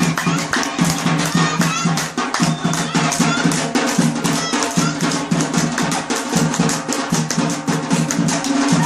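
Drums beaten in a fast, steady dance rhythm, several strokes a second, over a held low hum, with a few brief high glides on top.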